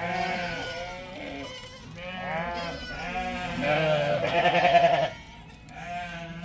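Sheep bleating: several calls one after another, the longest and loudest about four to five seconds in, with a quavering pitch.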